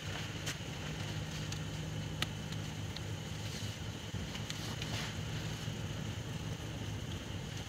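A steady low motor hum, with a few faint ticks.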